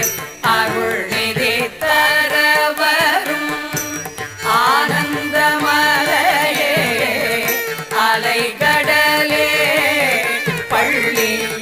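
Carnatic-style devotional music: a melody in bending phrases over a steady drone.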